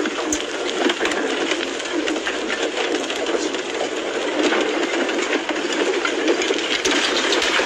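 An advancing lava flow engulfing a burning house: continuous crackling and clattering, with many small sharp cracks over a steady rushing noise.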